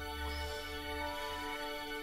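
Soft background music of long held notes, with a low hum fading out in the first half.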